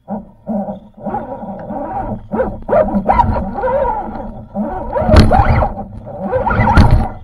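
Electric motor and gear drivetrain of a scale RC crawler truck whining close up, the pitch rising and falling with the throttle as it crawls. A few sharp knocks come from the truck bumping over the log.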